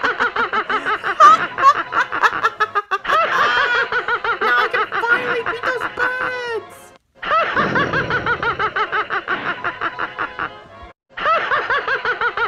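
Cartoon soundtrack: music with a rapid, pulsing, high-pitched snickering laugh. It drops out briefly twice, about seven and eleven seconds in.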